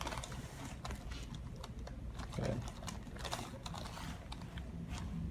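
Scattered light clicks and rustling from a patient being handled on a chiropractic treatment table, with a short low voice sound about two and a half seconds in.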